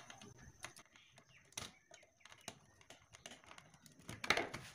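Small scattered clicks and scrapes of a screwdriver working a wire into a screw terminal on a plastic switchboard, with a louder knock and rattle about four seconds in.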